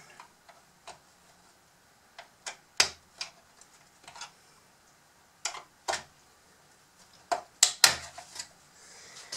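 Scattered sharp clicks and knocks of a Bruder CAT D11 toy bulldozer's hard plastic body parts being handled and worked at while it is taken apart, the loudest ones near the end.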